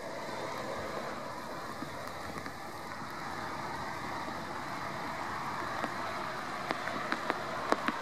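Steady rushing background noise, like distant road traffic, with several sharp clicks in the last couple of seconds.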